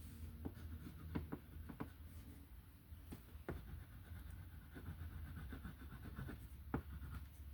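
Faint scratching of a colouring tool stroking on paper, with scattered light ticks as it touches down, over a steady low hum.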